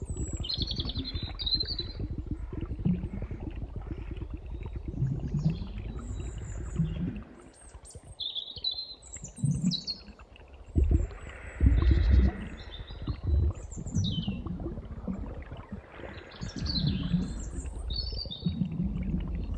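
Soundscape of birdsong over water: birds chirping and whistling in short, scattered calls over a steady low rush of water, which surges louder a few times a little past the middle.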